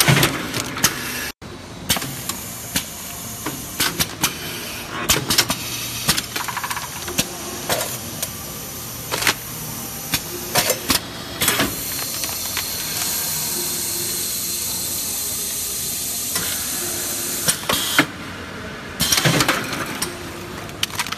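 Automatic doypack pouch-packing machine running: a stream of sharp pneumatic clicks and short air hisses as its cylinders and grippers cycle, with a steady hiss for about five seconds in the middle.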